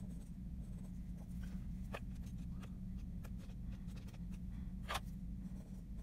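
A pen writing on a sheet of paper: short, faint scratches and strokes as figures and an equation are written out, a few of them louder, over a low steady hum.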